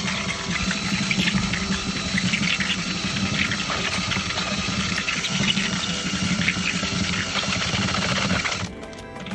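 Electric drill spinning a spiral paddle mixer through a watery white concrete slurry in a plastic bowl: a steady motor hum with the wet slapping and spattering of the slurry. The sound drops away near the end.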